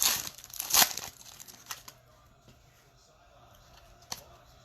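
Plastic-foil trading-card pack wrapper being torn open and crinkled, with two loud rips in the first second. After about two seconds it goes much quieter, and there is one light tap near the end.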